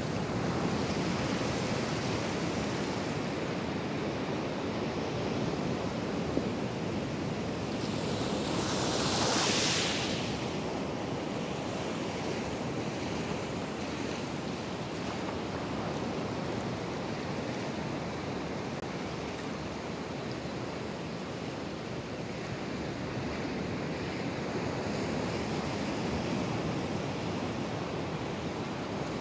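Atlantic surf breaking on an offshore sandbar and washing in over the shallows: a steady rushing noise, with a louder hissing surge about nine seconds in.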